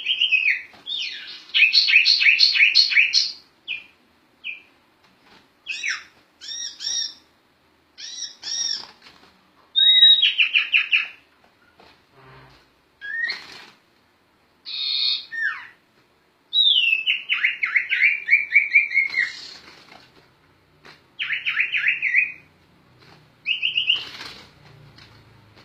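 Sirtu (sirpu) songbird singing continuously in varied phrases: sharp chirps, fast rolling trills of repeated notes and long falling runs of whistled notes, with short pauses between phrases.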